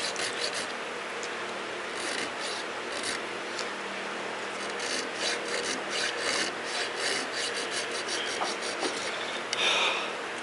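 A hand file cutting decorative file work into a knife's bolster/pommel plate, with repeated push strokes rasping on the metal. One louder, higher-pitched scrape comes near the end.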